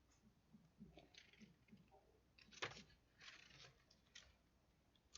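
Near silence: quiet room tone with a few faint clicks.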